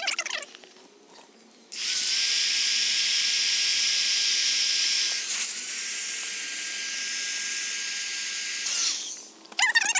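Handheld electric air pump running, blowing air into a compartment of an inflatable chair: a steady whine over a rush of air. It starts about two seconds in, drops a little in level about halfway, and stops near the end.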